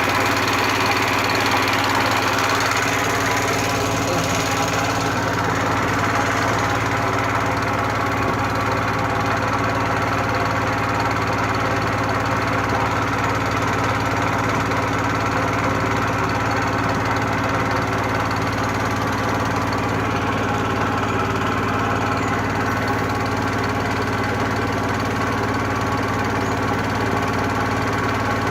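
Small boat's engine running steadily at a constant speed.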